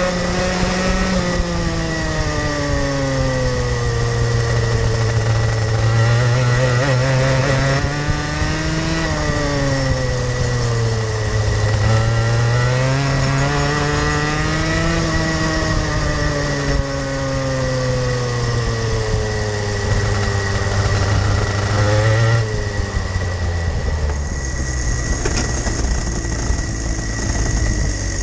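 Rotax Max Junior 125cc two-stroke kart engine heard onboard, its revs climbing on the straights and falling into the corners several times. About 22 seconds in, the revs drop suddenly and the engine settles to a low, even note.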